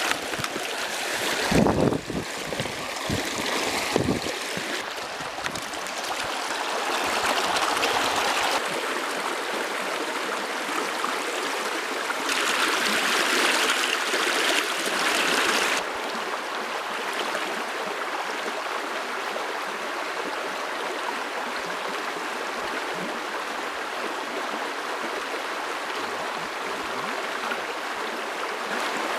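Mountain stream water rushing steadily, swelling louder for a few seconds twice, with a few dull knocks in the first four seconds.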